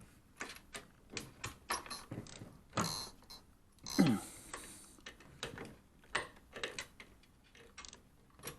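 Irregular light clicks and taps of metal hardware being handled, with a short falling creak about four seconds in.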